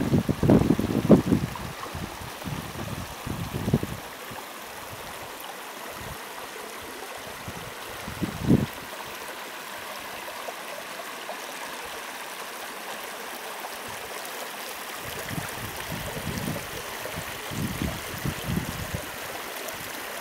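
Shallow stream running over granite rock, a steady rush of water. Low rumbling bumps break in over the first few seconds, once near the middle and again toward the end.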